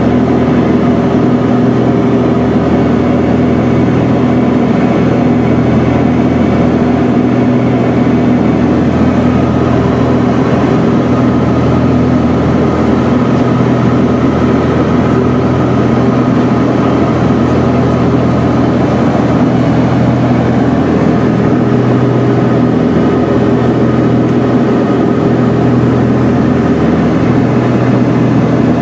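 Cessna 421's twin propellers and geared, turbocharged Continental flat-six piston engines in flight, heard inside the cabin: a loud, steady drone with a low hum and several steady tones.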